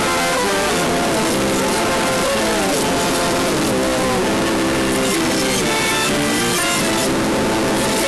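Music in G major played backwards: a run of pitched notes, some gliding, over a steady hiss like CB radio static.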